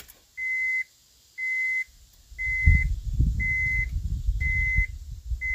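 A Honda Ridgeline's warning chime beeping steadily at about one beep a second, which is the truck's reminder that the door is open with the key on. About two seconds in, low bass from the stereo starts up through the newly installed door speaker, which is being tested.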